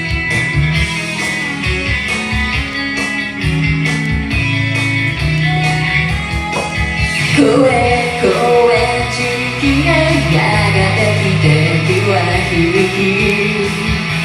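Punk-rock band music with electric guitars and drums; a sliding lead melody line comes in about halfway.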